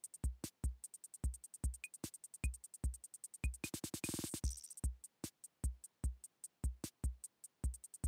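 Quiet electronic background music with a drum-machine beat: deep kick drum and crisp hi-hat ticks, with a short rapid fill about halfway through.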